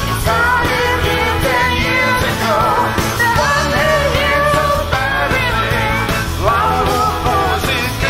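Live rock and roll band playing, with singing over guitars, cello, keyboard and drums, heard through the mixing-desk feed.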